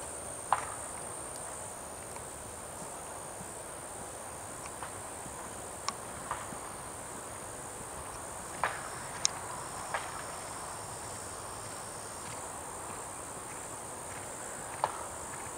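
Steady high-pitched insect chorus, crickets trilling without a break, with a handful of sharp clicks scattered at irregular intervals.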